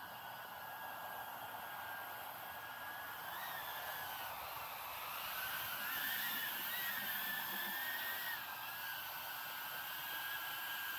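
Small 3-inch cinewhoop quadcopter's motors and propellers whining in flight, the pitch wavering up and down with the throttle. It grows a little louder around the middle as the drone is flown back in.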